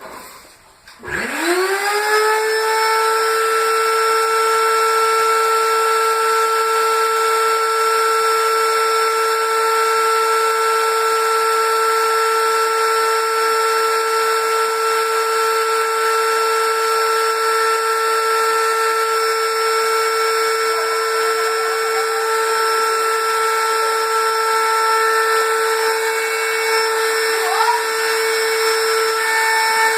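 Vacuum cleaner switched on about a second in: its motor spins up with a quickly rising whine, then runs at a steady high whine.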